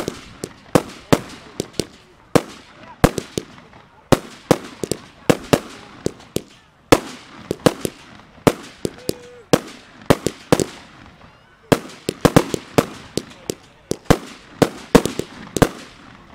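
Fireworks display: aerial shots bursting in a rapid, uneven string of sharp bangs, several a second, in runs broken by brief lulls.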